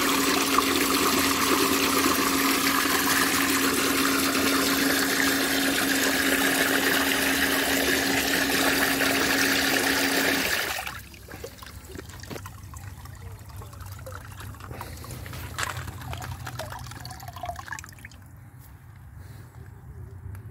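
Murky backwash water from a Bestway sand filter's waste outlet gushing into a plastic tub, with a steady hum from the filter pump. Both stop abruptly about halfway through, leaving only faint trickling and bubbling in the tub.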